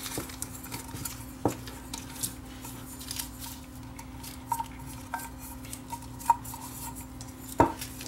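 Light clicks and taps of small parts being handled: wires, a plastic ceiling-fan speed switch and the fan's metal switch housing. Two sharper knocks stand out, about a second and a half in and near the end.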